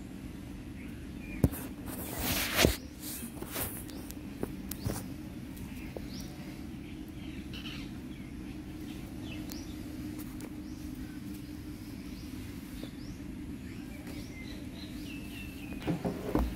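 Outdoor background ambience: a steady low hum with faint bird chirps scattered through it. A sharp click about one and a half seconds in and a short rustling burst just after are the loudest sounds, with a few more clicks near the end.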